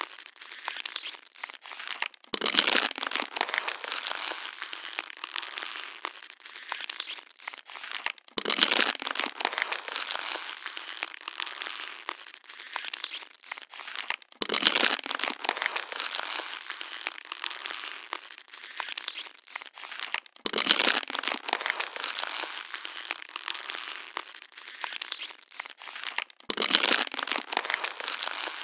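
Plastic water bottle being crushed and crinkled, crackling continuously with a louder crunch about every six seconds, five in all.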